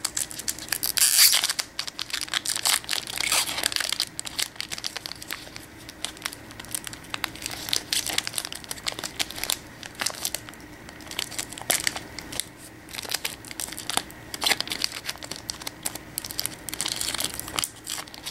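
A foil booster-pack wrapper crinkling and tearing as it is worked open by hand, irregular crackles throughout, louder about a second in and near the end.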